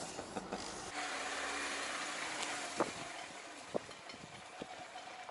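Off-road vehicle's engine running as it drives through a shallow stream, with a steady hiss of water starting about a second in and a few scattered knocks.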